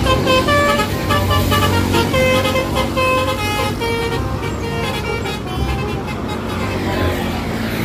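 Bus telolet horn, a multi-tone musical air horn, playing a quick tune of short stepped notes for several seconds, with the bus engine running low underneath.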